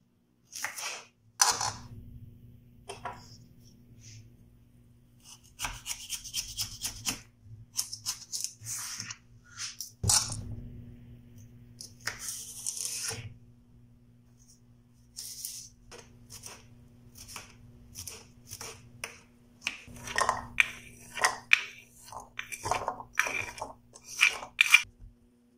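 Kitchen knife cutting through a cucumber on a wooden cutting board: crisp slicing strokes and knocks of the blade on the wood, irregular at first, then a quicker run of chopping strokes near the end as the cucumber is diced.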